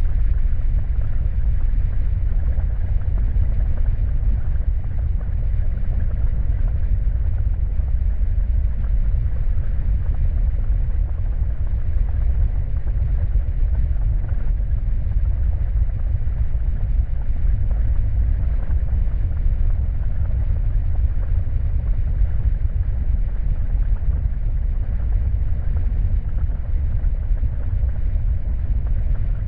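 A steady, deep rumbling noise with no rhythm or change: a dark, creepy ambient sound effect.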